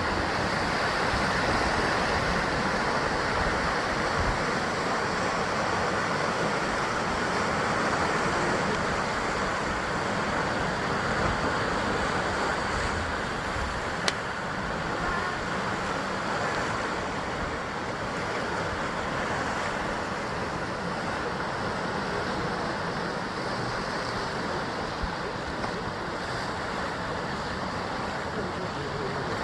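Sea waves surging and washing against a rocky basalt shore in a steady, continuous rush that swells a little louder in the first few seconds. There is one brief sharp click about halfway through.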